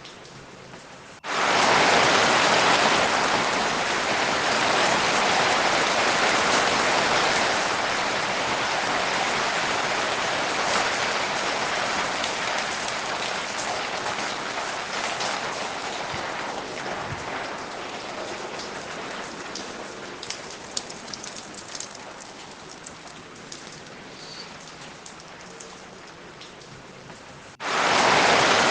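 Steady rain falling, an even hiss that starts abruptly about a second in and slowly eases, with a few separate drops heard in the later part. It cuts off suddenly near the end to a much quieter background, then comes back loud.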